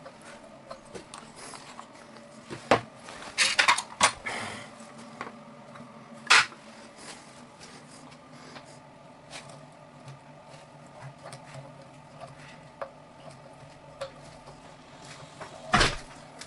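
Scattered sharp clicks and knocks from hands working a brass fitting and plastic pipes on an electric water heater's inlet, with a short scraping rustle a few seconds in and a sharp knock near the end, over a faint steady hum.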